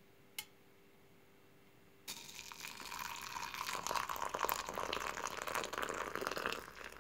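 Freshly boiled water poured from a kettle into a ceramic mug onto dried stevia leaves. The steady splashing stream starts about two seconds in, after a single short click.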